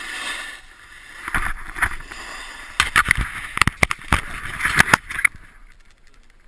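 Snowboard scraping and chattering over hard, icy snow, with a run of sharp knocks and rattles. The noise falls away about five seconds in as the board slows to a stop.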